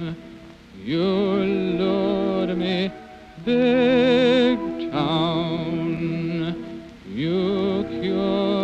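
Slow sentimental organ music: sustained chords under a wavering, tremulant melody line in phrases of a second or two, some notes sliding up into pitch.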